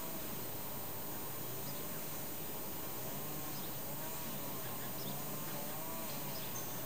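Distant two-stroke brush cutter (string trimmer) running, its buzzing whine rising and falling in pitch about once a second.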